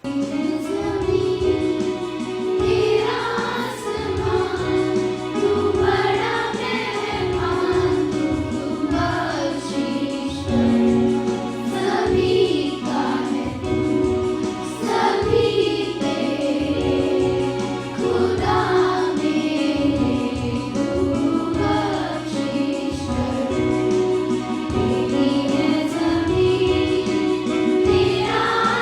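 A group singing a Hindi prayer in chorus, with musical accompaniment.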